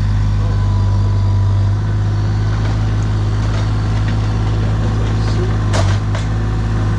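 A large engine idling steadily with a deep, even hum, with two short knocks about six seconds in.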